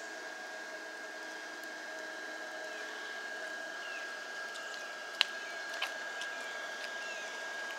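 Steady whooshing hiss of the electric blower fans that keep inflatable Halloween lawn decorations up, with a thin steady high whine. A sharp click about five seconds in and a few faint short chirps.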